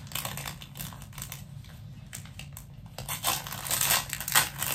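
Pens and their packaging being handled: irregular rustling and light clicks, getting busier about three seconds in.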